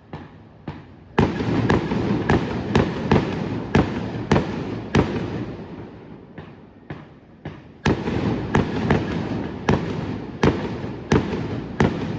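Fireworks going off in quick succession: sharp bangs about two a second, with a dense crackling rumble in between. The bangs come in two volleys with a short lull midway.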